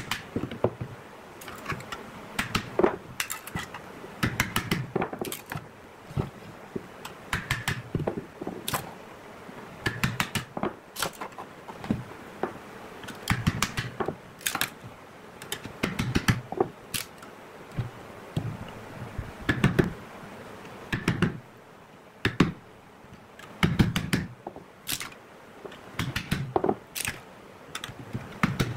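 A steel chisel knocking and scraping against a thin metal tin as the tin is cut and peeled away from a cured epoxy casting. Irregular sharp clicks and knocks, about one or two a second, with metallic rattling.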